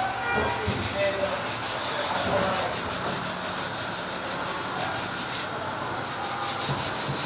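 Steady rasping scrape of a tool cutting into material, with a fast, even rhythm of strokes: the work of making a hole for a spotlight fitting.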